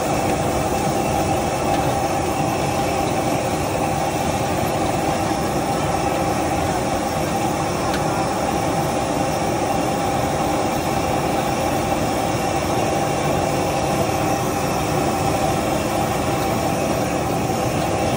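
Commercial wok stove running steadily: an even rush from the gas burner and its blower fan, with a constant hum over it.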